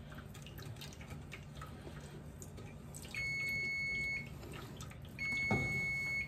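Electronic kitchen timer beeping twice, two long steady beeps about a second each, the first about three seconds in and the second about five seconds in. It is the timer set for the roux going off. Underneath, a wooden spatula scrapes lightly in the pot of milky roux.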